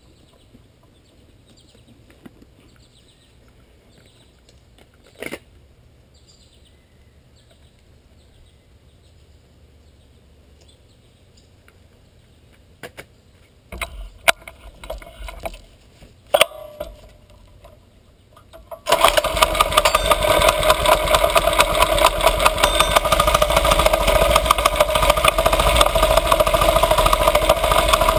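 A few light knocks and handling sounds over quiet background, then about two-thirds of the way in a mini bike's small engine starts suddenly and keeps running loud and steady, with a fast pulsing beat.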